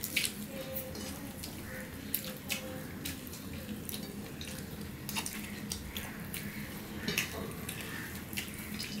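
Wet eating sounds of people eating rice and curry with their fingers: scattered soft clicks, smacks and squelches of mixing and chewing, irregular throughout.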